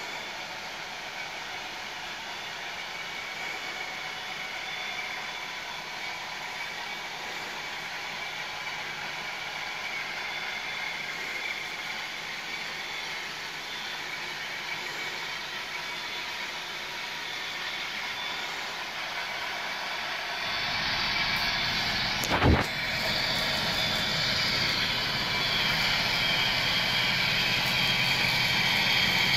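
HO scale model train running, with four GEVO diesel locomotives leading a string of coal cars: a steady rolling hum with faint high tones that grows louder as the train approaches and gets louder again about two-thirds of the way through as the locomotives come onto the trestle close by. There is a single sharp click about 22 seconds in.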